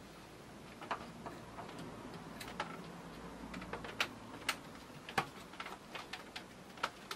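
Irregular light clicks and taps of plastic as the last DDR3 memory module is handled and lined up in its motherboard slot.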